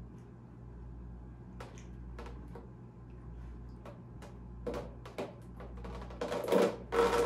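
Plastic housing of a whole-house water filter being worked loose by hand: scattered clicks and knocks, then from about six seconds in a louder, denser rattling and rushing noise.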